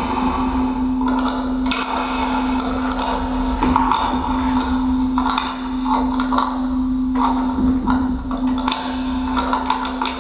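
Stage soundtrack for a contemporary dance piece: shifting noisy textures over one steady held low tone.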